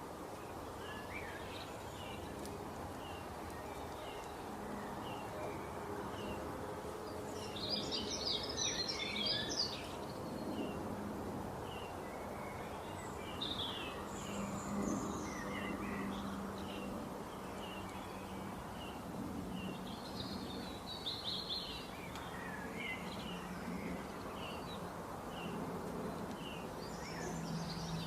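Songbirds chirping and singing over a steady rushing hiss of flowing water. A short chirp repeats about twice a second, with louder bursts of twittering song every few seconds.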